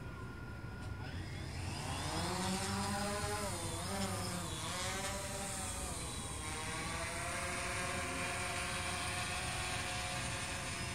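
DJI Phantom quadcopter's rotors spinning up about a second in from idle into a buzzing whine as it lifts off. The pitch climbs and wavers for a few seconds, then settles into a steady hover.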